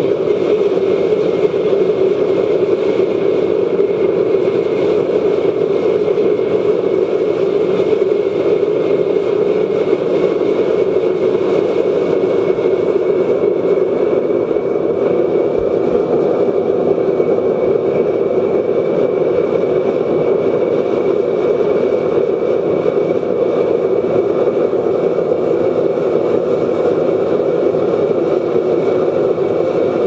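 Waste oil burner running on forced air from a 12-volt bilge blower: a steady, loud rushing of flame and air, with a faint high steady tone over it.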